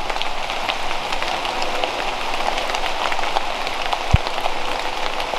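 Heavy rain pouring down: a dense hiss dotted with many sharp drop ticks, and a single low thump about four seconds in.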